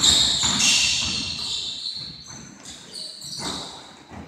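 Basketball game on a hardwood gym floor: sneakers squeaking in sharp high chirps and a ball bouncing, echoing in the large hall. The squeaks are loudest at the start.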